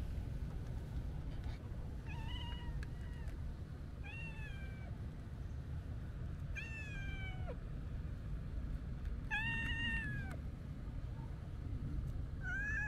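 A cat meowing five times, short calls spaced a couple of seconds apart, most of them dropping in pitch at the end.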